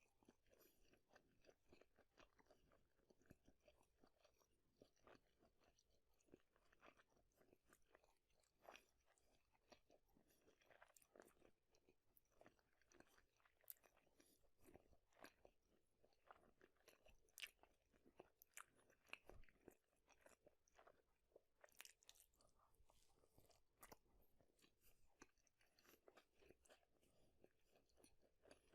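Close-miked eating: a person biting and chewing food, with a quiet, continuous run of small crunches and mouth clicks.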